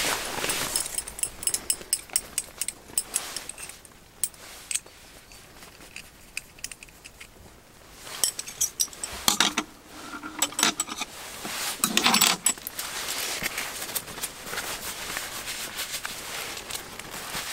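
Light metal clicks and clinks from metal tongs being handled against a mess tin, in two clusters with a quieter pause between, the loudest near the middle. A steady hiss fills the last few seconds.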